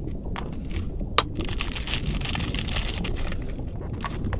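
Crinkling plastic bag of toy puzzle pieces being pulled out of a plastic capsule and handled, with one sharp plastic click about a second in.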